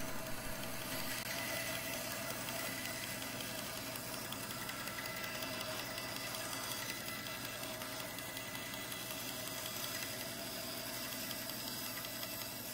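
Bandsaw running steadily: a level motor hum with the whir of the moving blade.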